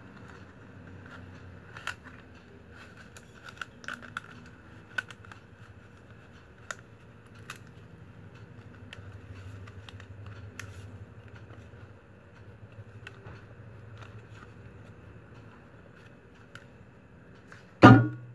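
Scattered light clicks and crackles of a woven plastic-strap panel and a wooden stick being handled and fitted together, with one loud knock near the end.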